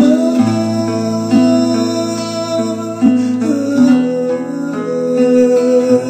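Instrumental passage of a Portuguese-language gospel song: music with long held chords and a low bass note, without vocals.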